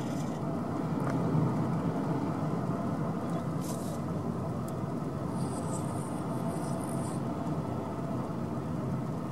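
Steady engine and tyre rumble of a car heard from inside its cabin as it rolls along a country road. A faint high-pitched whine comes in for about two seconds midway.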